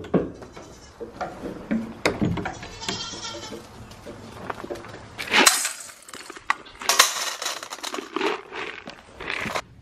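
Goats bleating, with bursts of rattling about halfway through as dry feed pellets go into a steel bowl.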